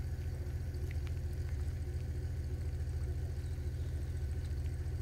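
An engine idling: a steady, evenly pulsing low rumble, with a few faint clicks over it.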